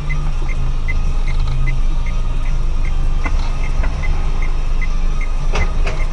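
A car's engine and road noise, steady, with a light regular ticking about two to three times a second.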